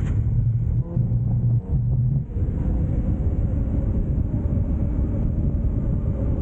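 Nissan Pathfinder R50's engine running with a low rumble while driving, its note dipping briefly about one and two seconds in, then carrying on under a steady rushing noise.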